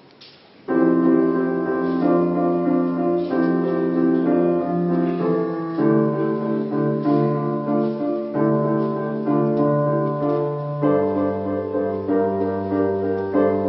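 Piano playing slow sustained chords, beginning abruptly about a second in. The chords change roughly every five seconds, like the opening of an accompaniment before the choir sings.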